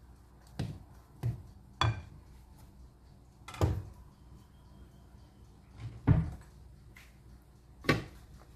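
About six separate sharp knocks and clunks, spaced irregularly, from kitchen things being handled and set down.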